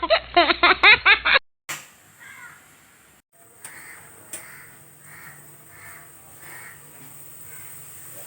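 Pressure cooker whistle letting off steam in a fast run of squawking, caw-like toots that stops about a second and a half in. Afterwards a faint steady hiss of steam with soft rhythmic puffs, about one every half second.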